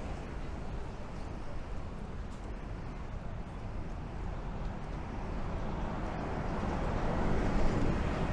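Street traffic noise, steady, swelling near the end as a bus passes close by.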